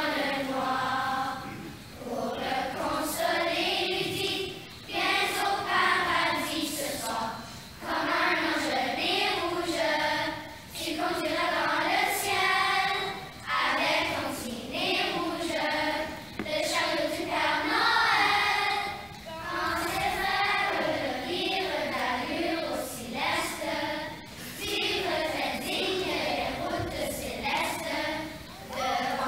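Children's choir singing together in short phrases, with brief breaks between them.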